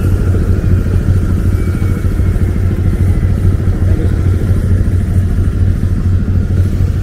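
Loud, steady low machine drone from running aircraft ground machinery at the rear stairs of an Airbus A320, with a faint thin whine above it.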